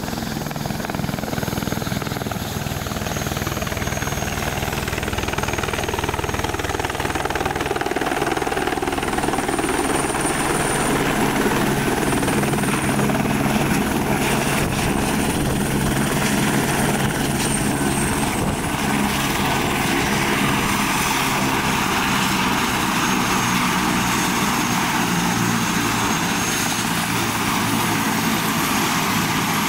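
Airbus H125 helicopter with its single turboshaft engine, coming in and landing close by. The main rotor beats steadily over a high turbine whine. The sound grows louder over the first ten seconds or so as it approaches, then holds steady as it hovers low and sets down with the rotor still turning.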